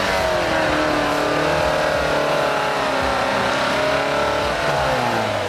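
Lada Niva's engine running at high revs while driving off-road. Its pitch sinks slowly through the middle and rises again near the end.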